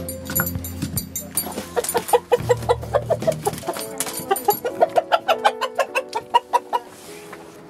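A domestic rooster clucking and squawking in a quick run of short calls, several a second, as it is grabbed and held by hand. The calls die away near the end.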